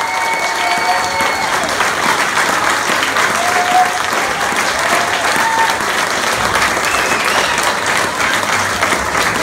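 Concert audience applauding steadily, with a few short calls rising out of the clapping.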